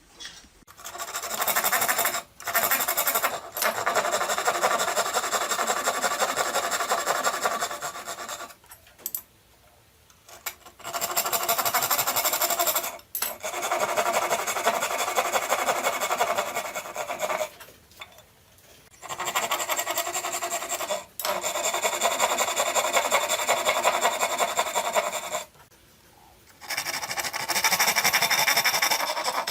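A hand tool scraping and cutting through wood in fast, continuous strokes, in runs of several seconds with short pauses between them.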